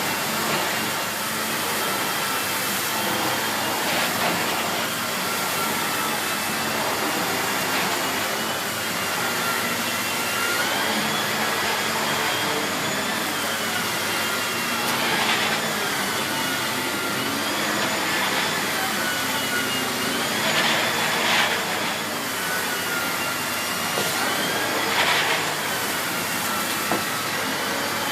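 Miele S8 bagged cylinder vacuum cleaner running steadily while vacuuming. Its motor whine wavers slightly up and down in pitch as the floor head moves, with a few brief louder surges of suction.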